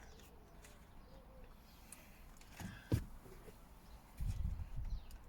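Hands working on a car door panel: a sharp click about three seconds in, then low knocking near the end. A bird coos faintly in the background.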